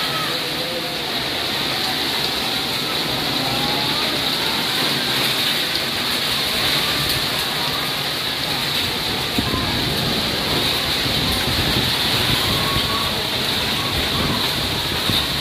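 Hailstorm: heavy rain mixed with hailstones falling in strong wind, a steady dense rushing noise.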